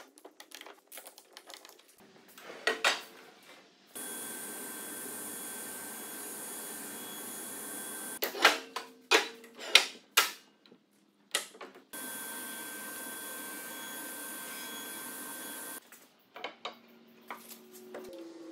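Woodshop work: sharp knocks and clacks of hardwood pieces being handled and set down, alternating with two stretches of a shop machine running steadily that start and stop abruptly. The loudest knocks come in a quick cluster about halfway through.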